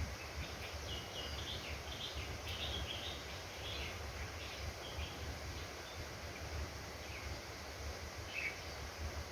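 A bird chirping in quick runs of short high calls through the first half, with a few more chirps near the end, over a steady low background rumble.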